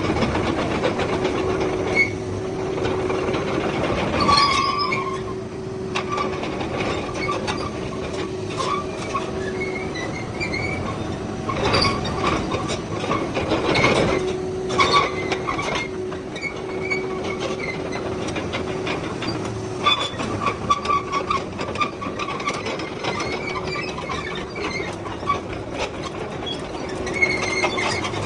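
Komatsu PC220-8 hydraulic excavator running on its SAA6D107E-1 six-cylinder diesel engine as it moves, with a steady drone, short high-pitched metallic squeaks and scattered clanks from its tracks and working parts.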